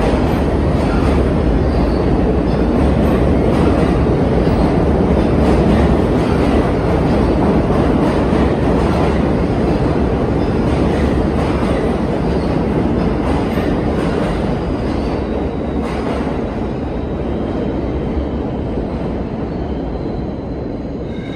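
New York City subway train running through the station: a loud, steady rumble of wheels on rail that eases off gradually over the last few seconds.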